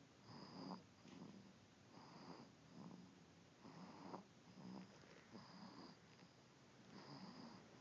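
Soft, rhythmic snoring from a sleeper: a steady series of snoring breaths, about one every one and a half seconds.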